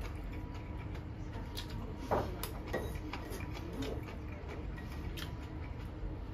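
Chopsticks clicking and tapping against a ceramic plate and bowl while picking up food: a few light, irregular clicks over a steady low room hum.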